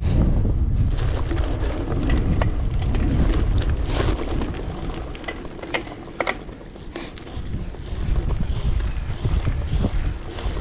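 Wind buffeting the microphone of a gravel bike rider's camera while riding, over a steady rumble, with scattered sharp clicks and rattles from the bike, most of them in the middle of the stretch.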